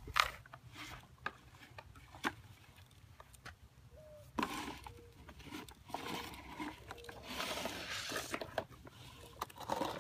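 Plastic toy excavator clacking as its arm is worked, with its bucket scraping and digging through gravelly dirt. There are sharp clicks throughout, the loudest about a quarter second in, and a longer stretch of scraping in the middle.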